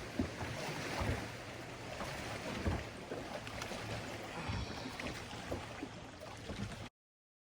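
Outdoor noise on a small fishing boat: wind and water with a steady low hum and scattered light knocks and bumps. It cuts off abruptly into silence near the end.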